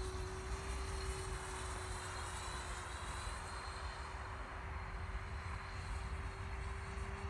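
Electric ducted fan of a Sebart Mini MB-339 model jet flying overhead: a steady rushing hiss with a thin high whine whose pitch sags slightly two to three seconds in. A low rumble runs underneath.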